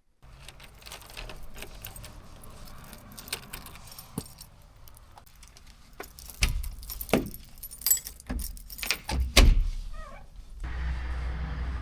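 Keys jangling and clinking with sharp knocks of handling as the Aprilia RS4 125 is readied. Near the end the bike's single-cylinder engine starts running at a steady idle.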